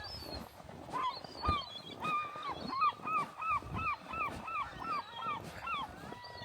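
A bird calling: a few drawn-out notes, then a rapid run of about a dozen short, falling calls, roughly three a second.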